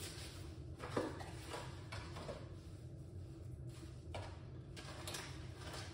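A few faint knocks and rustles, the loudest about a second in, over a steady low hum.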